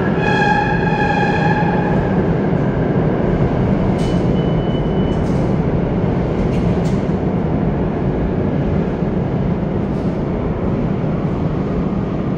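Steady rumble of a subway train running out of sight in the station's tunnels, with a brief whining tone near the start, a short high squeal about four seconds in and a few faint clicks.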